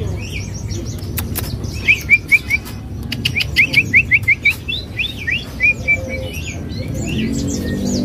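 Caged songbird singing a run of quick, repeated sharp chirps, starting about two seconds in, with a few sharp clicks around them.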